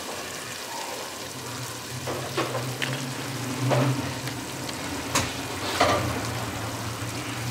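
Chicken masala gravy sizzling and bubbling in an aluminium pot over a high gas flame, with a few sharp pops. A steady low hum joins in about two seconds in.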